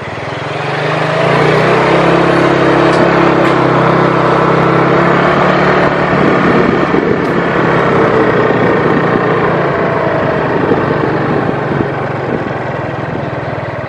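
A small vehicle's engine running as it drives along, with road and wind noise. It grows louder over the first second or so, then holds a steady, even pitch.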